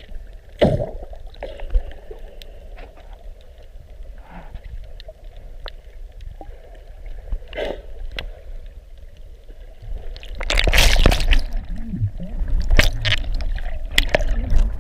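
Water sloshing and gurgling over an underwater camera's microphone, with scattered sharp clicks. About ten seconds in, a louder rush of churning water runs for a couple of seconds, then comes again briefly near the end.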